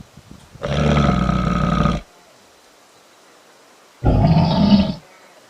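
Two growls from a large wild animal, taken for a bear: a long one of about a second and a half, then after a pause a shorter one of about a second.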